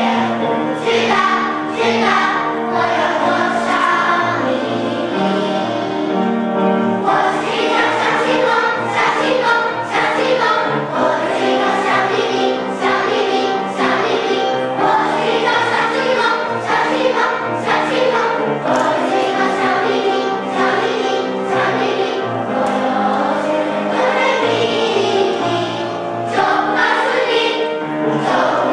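A large children's choir singing a song, continuous and at an even loudness.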